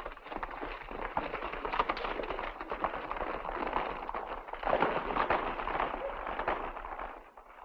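A group of horses galloping away over a dirt street: a dense clatter of many hoofbeats that fades near the end.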